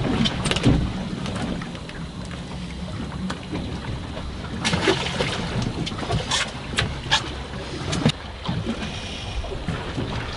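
Wind buffeting the microphone and sea water washing around a small fishing boat offshore, with several sharp knocks and clicks on board.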